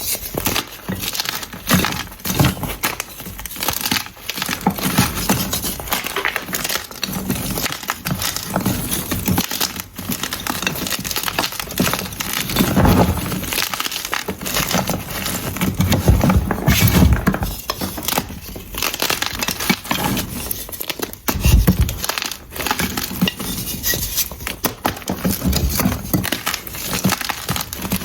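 Unpolished blocks of gym chalk being crushed close to the microphone: a dense, irregular crisp crackling and crunching that goes on throughout, with a few heavier crunches landing as low thuds.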